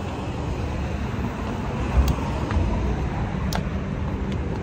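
City street traffic: a steady rumble of passing cars, with a low thump about two seconds in and a few sharp clicks.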